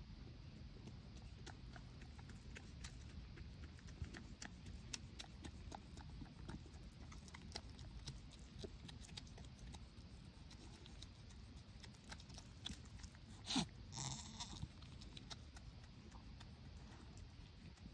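A goat gives one short, loud bleat about two-thirds of the way through, followed by a weaker call. Under it there is steady faint clicking and rustling close to the goats.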